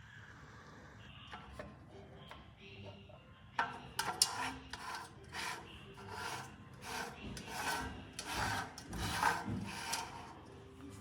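Rapid repeated rubbing strokes, about two to three a second, starting a few seconds in and stopping near the end.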